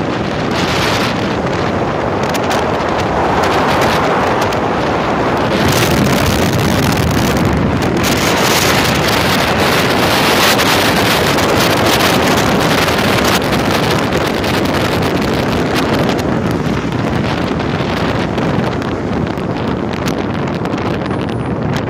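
Wind rushing and buffeting on the microphone of a moving car, over the steady noise of the car driving. It swells a little in the middle, then eases off.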